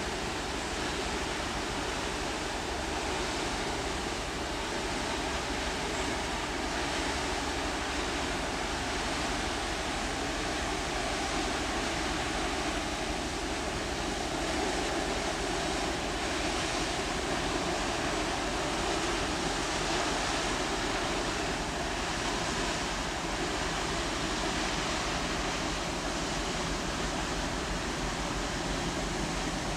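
Steady rushing noise with a low drone beneath it, swelling a little midway as a large cruise ship's engines and ventilation pass close by.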